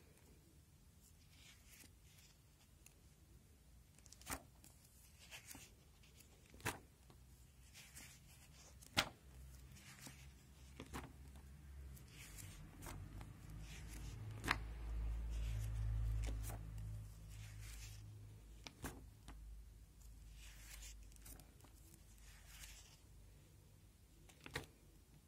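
Pages of a binder of clear plastic sheet protectors being turned by hand: soft plastic rustling and swishing, broken by a dozen or so sharp clicks and snaps of the sleeves. A low rumble swells around the middle.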